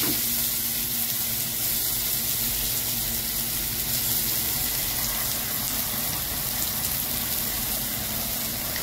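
Freshly added chopped onions sizzling in hot cooking oil in a steel pan: a steady, even hiss.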